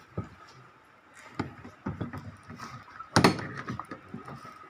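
Several separate knocks and clacks as a pedal kayak's metal-framed seat is handled against the plastic hull and its deck rails. The loudest knock comes a little over three seconds in.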